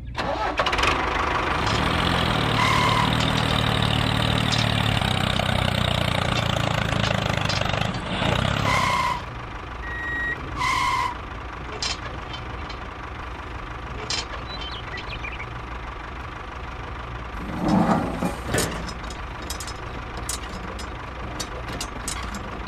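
An engine idling steadily, with short electronic beeps about three, nine and eleven seconds in. The engine sound drops away about nine seconds in, leaving a low hum and small clicks as toy tractor parts are handled at the hitch, with a brief louder knock near eighteen seconds.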